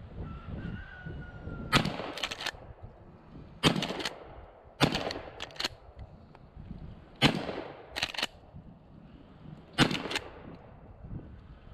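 A 12-gauge Winchester Model 1897 pump-action shotgun fired several times in steady succession, about two seconds apart. Each shot is followed by the quick clack-clack of the slide being racked to eject and chamber the next shell.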